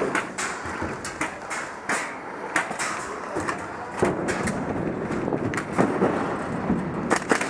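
Scattered sharp cracks and knocks from an airsoft skirmish: shots and BBs striking around, with a quick cluster of several cracks near the end.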